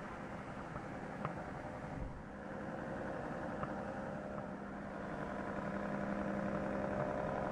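Wide-belt sanding machine running with wooden slats passing through on its feed belt: a steady hum with a few faint ticks.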